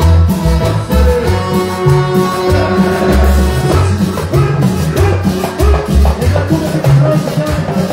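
Live cumbia band playing: a pulsing bass line and steady percussion under keyboard and brass parts.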